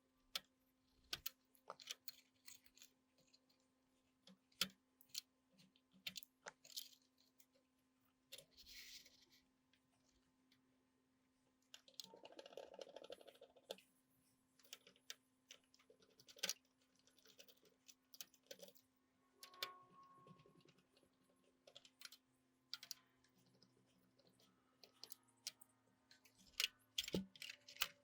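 Scattered small clicks, taps and brief scrapes of hand tools and small parts being handled on a workbench, faint and irregular, over a faint steady hum.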